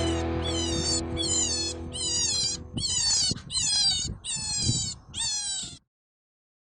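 An animal's short high-pitched calls, each falling in pitch, repeated about twice a second, over background music that fades away; the calls stop abruptly near the end.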